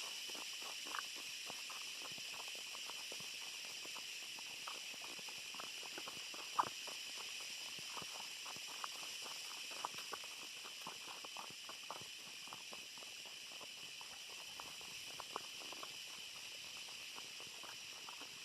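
Footsteps crunching through dry leaf litter and twigs on a forest floor: a run of irregular crackles with one louder crack about six and a half seconds in, over a steady high-pitched hiss.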